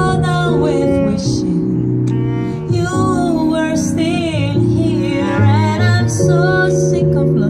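Live jazz through PA speakers: a female voice sings a slow, wavering melody over stage piano chords and a plucked double bass line.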